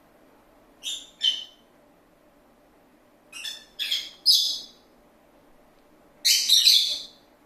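Pet lovebird giving short, harsh chirps: two near the start, three around the middle, and a longer run of chirps near the end.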